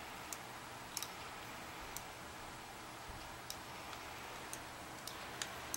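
Faint, irregular light ticks, roughly one a second, over a low steady hum from a powered-up but stopped RCA YLG43 solid-state reel-to-reel deck with its cover off.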